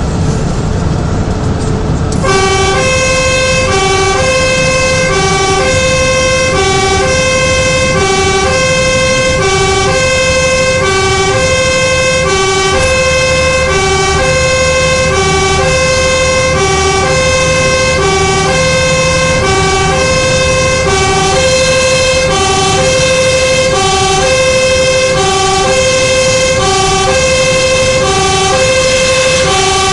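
Fire engine's two-tone siren, switched on about two seconds in and then steadily alternating between a lower and a higher tone, about one low-high cycle every second and a half. It is heard from inside the cab over the truck's engine and road noise.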